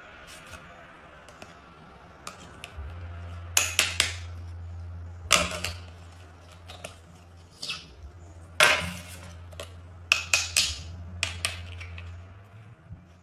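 Sharp clicks and clacks of a phone, a card and a thin metal plate being handled and knocked together, in quick clusters of two or three, over a low steady hum.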